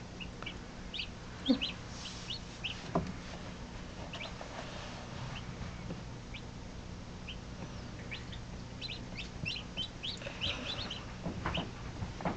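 Newly hatched chicks peeping: short high peeps scattered throughout, coming thicker near the end, over a low steady hum.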